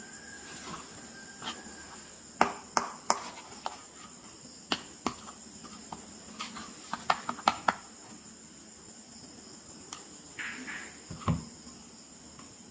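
Pink plastic toy camera handled, with a string of sharp plastic clicks and taps, then a duller knock near the end as it is set down on the mat. A steady faint high-pitched whine runs underneath.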